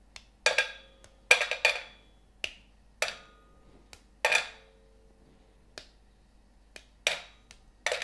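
Dark chocolate bar being snapped by hand into small pieces that drop into a stainless steel bowl: a dozen or so irregular sharp snaps and clinks, the bowl ringing briefly after several of them.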